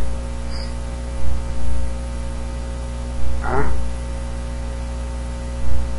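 Steady electrical mains hum with a faint hiss. About three and a half seconds in there is one brief vocal sound from a person.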